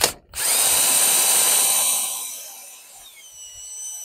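Cordless drill winding a Boss 370 caravan stabiliser leg's screw mechanism: a click, then the drill runs loud and steady for about a second and a half before easing off and fading. Its battery is losing a bit of charge.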